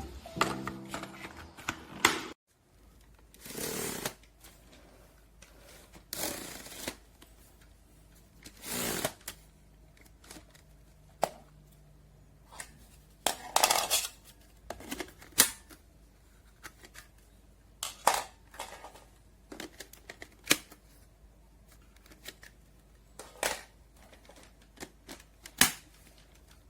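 Irregular clicks, knocks and short rustles of objects being handled, with no motor running.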